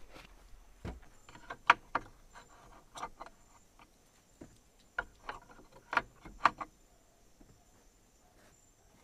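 Handling noise: a dozen or so sharp clicks and knocks as the camera is picked up and moved about, stopping about seven seconds in.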